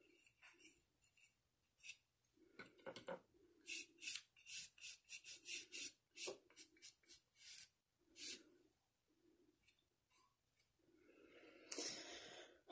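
Small paintbrush stroking paint onto a little doll dresser: a faint, irregular series of short brushing rubs.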